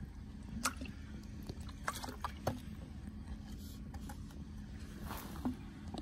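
Water splashing from a plastic water bottle onto a rough stone, with the bottle crinkling in the hand: a handful of scattered short clicks and crackles over a low steady rumble.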